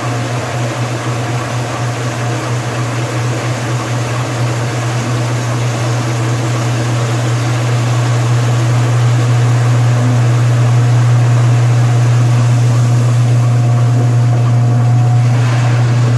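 Washing machine running: a steady low motor hum with a hiss over it, growing a little louder about halfway through.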